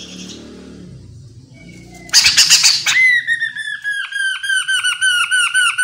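Chestnut-capped laughingthrush calling. About two seconds in it gives a loud harsh squawk, then breaks into a fast run of repeated down-slurred whistled notes, about five a second.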